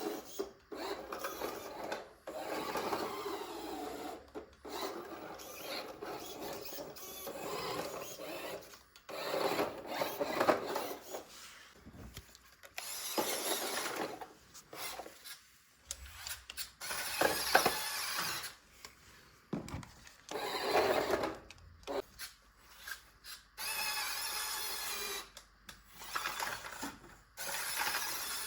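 Small toy RC car's electric motor and plastic gearbox whirring in repeated spurts of a second or two, starting and stopping, with rubbing and rattling from the car working over an obstacle.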